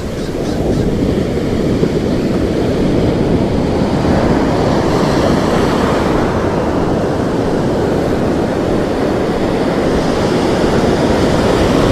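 Ocean surf breaking and washing up the beach, a steady rushing noise that swells about a second in.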